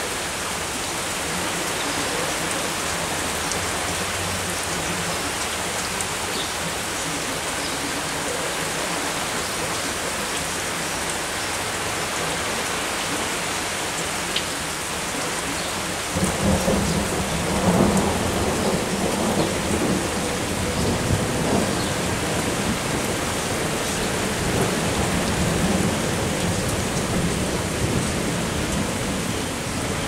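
Steady rain falling, with thunder rumbling in about halfway through, loudest a couple of seconds after it starts and rolling on for several seconds.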